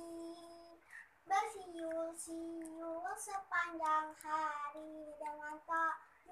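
A young girl singing, holding long notes, with a short break about a second in.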